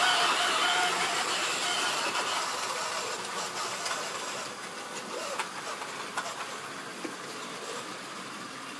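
Model train running on sectional track: a steady electric-motor whir with wheel rumble that fades as the train slows. A few sharp clicks of wheels crossing rail joints or points come about halfway through.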